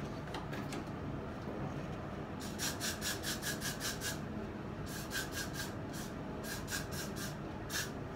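Quick scratchy rubbing strokes, about five or six a second, in two runs: one from about two and a half seconds in, and a longer one from about five seconds in.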